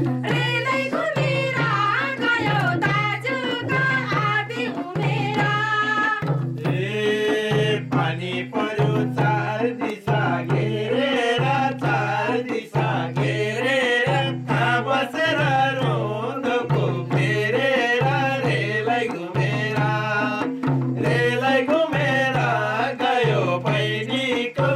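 Live folk song: voices singing a bending melody into a microphone over a steady, repeating low hand-drum beat.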